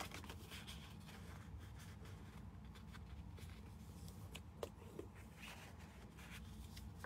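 Faint rustling and rubbing of designer paper being folded along its score lines and creased with a bone folder, with a few soft taps, over a low steady hum.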